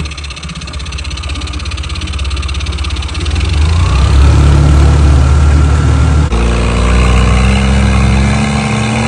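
Small outboard motor running on its freshly cleaned and rebuilt carburettor during its test run: it is throttled up with the tiller twist-grip about three and a half seconds in, its pitch rising, then after an abrupt change about six seconds in it runs steadily at speed under way.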